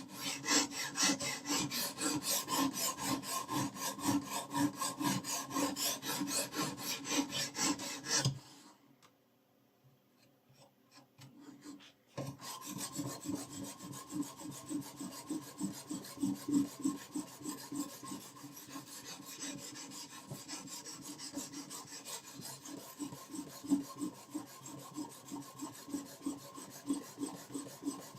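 A knife blade is stroked back and forth across a sharpening stone, a rhythmic rasping a few strokes a second. About eight seconds in the strokes stop for roughly four seconds, then start again, quieter.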